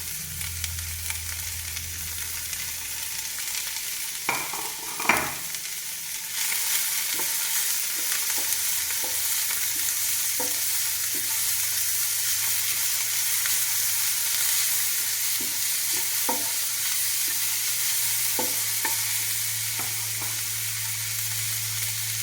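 Chopped onion and carrot sizzling in butter on a tawa while being stirred, with scattered short scrapes and taps of the utensil against the pan. The sizzle gets louder about six seconds in.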